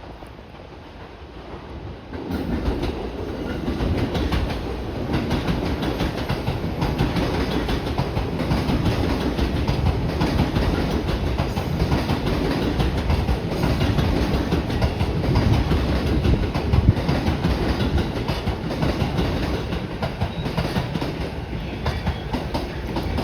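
Electric multiple-unit train running along the platform, wheels clacking over the rail joints. The rumble swells in about two seconds in and stays loud and steady.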